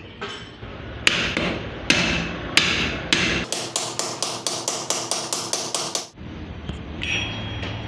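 Hammer blows in a workshop: a few spaced strikes, then a fast even run of about five blows a second that stops about six seconds in.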